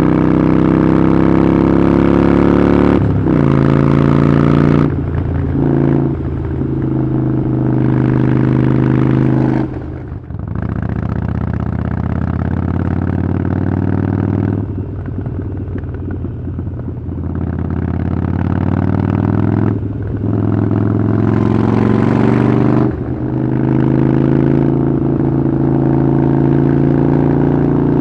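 Harley-Davidson Iron 883's air-cooled V-twin through a Vance & Hines exhaust, ridden under throttle: the engine note climbs, then drops sharply at each gear change or roll-off, about half a dozen times.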